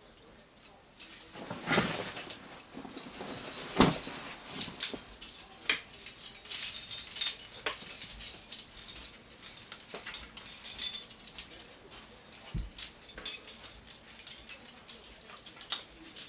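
Climbing and camping gear being handled and packed: a string of scattered metal clinks, clicks and light knocks, with two louder knocks about two and four seconds in.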